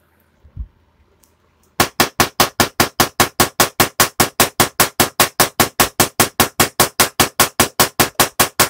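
Solid-state Tesla coil firing spark discharges in a steady train of sharp, very loud cracks, about five a second, starting about two seconds in. A single low thump comes just before.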